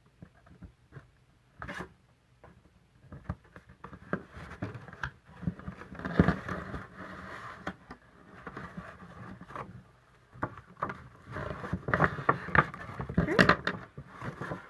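Cardstock being folded and creased by hand: scattered taps, rustles and scrapes of paper, busiest in the second half.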